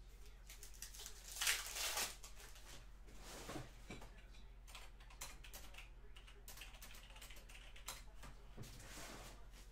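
Foil trading-card pack wrappers crinkling and cards being handled, many light clicks and rustles, with a louder crinkle of foil about a second and a half in.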